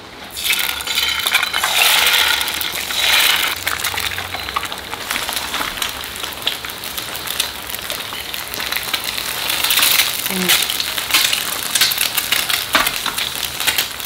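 Food sizzling in a pan while being stirred: a steady crackle, with frequent small clicks and clinks of a metal utensil against the pan.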